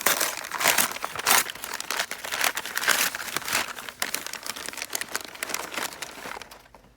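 Packaging being unwrapped by hand: dense crinkling and rustling with sharp crackles, dying away about six seconds in.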